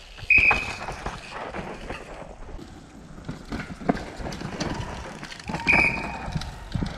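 Downhill mountain bikes running over loose, dusty dirt, tyres scrabbling and skidding. Twice, a second or so in and again near the end, a short high squeal rings out as a rider brakes hard, the squeal of disc brakes.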